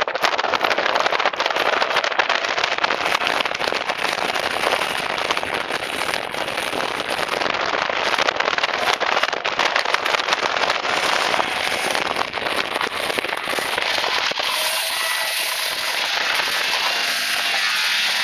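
A 1979 Arctic Cat El Tigre snowmobile's two-stroke engine is run hard at high revs, making a dense, crackling rasp over rushing wind and snow. About three-quarters of the way through the sound turns thinner and higher, with a faint wavering engine tone.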